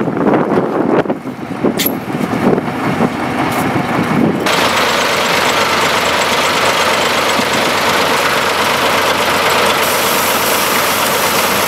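Gusty wind buffeting the microphone with a sharp click about two seconds in, then, after an abrupt change, the steady running noise of heavy vehicle engines.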